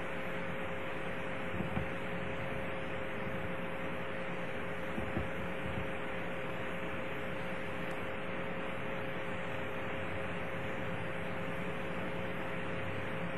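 Background hiss and a steady two-tone hum from an old lecture recording, with no one speaking. A couple of faint soft knocks come about two and five seconds in.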